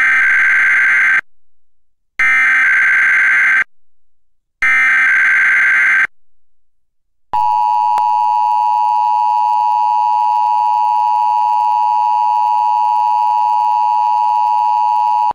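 Emergency Alert System SAME header: three bursts of digital data tones, each about a second long with a short gap between them. Then the two-tone EAS attention signal (853 and 960 Hz) sounds steadily for about eight seconds. Together they open an EAS Required Weekly Test.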